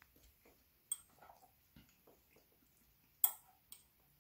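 A few sharp clicks of metal utensils against a ceramic plate, with smaller ticks between; the loudest click comes about three seconds in, with another just after.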